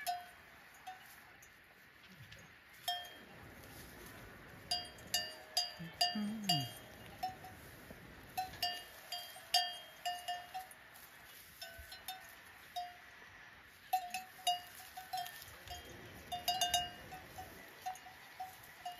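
Bells hung on the necks of grazing cattle, clanking irregularly as the animals move their heads to feed. They come as quick clusters of metallic clanks with a short ringing tone.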